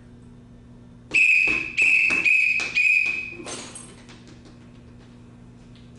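A shrill whistle blown four times in quick succession, about a second in, each blast a steady high tone.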